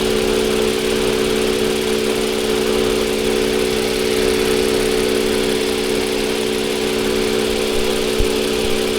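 Toyota Avalon V6 engine idling steadily and evenly, with no stumble: the cylinder 6 misfire, blamed on a clogged injector, is gone.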